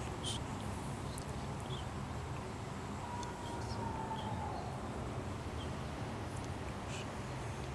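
Quiet hall room tone: a steady low hum from electric fans, with faint scattered clicks and rustles from worshippers shifting on their mats. A faint high tone sounds briefly about three seconds in, sliding slightly down.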